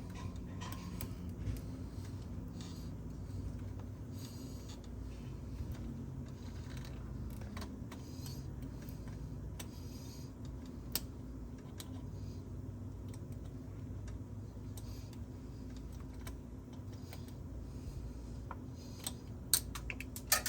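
Scattered light clicks and taps of hand tools and small metal parts while working on the throttle cable fittings, with a steady low hum underneath. A few louder clicks come near the end.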